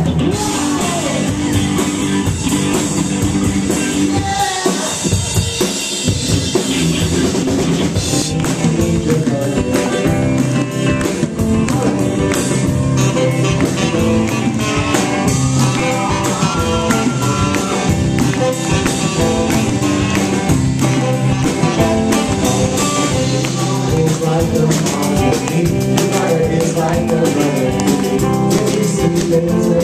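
Live rock band playing loudly, with a drum kit and guitar.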